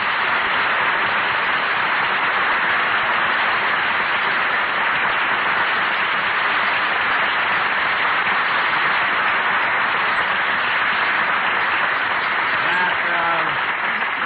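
Studio audience applauding steadily on an old radio broadcast recording, with a faint voice coming in near the end.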